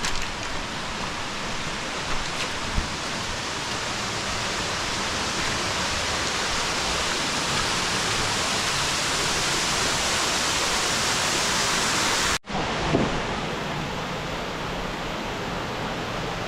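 Steady rushing of falling water, like a waterfall, growing slightly louder, then breaking off for an instant about twelve seconds in and carrying on a little quieter with a brief thump.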